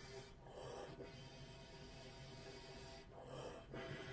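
Didgeridoo playing a steady low drone, with breathy snorting accents about half a second in and again about three seconds in.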